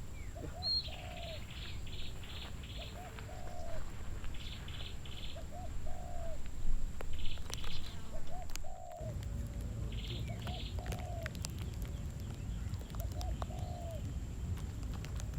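A dove cooing, a short two-part call repeated about every one and a half to two seconds. Another bird gives bursts of four to six rapid high chirps in between, over a steady low rumble.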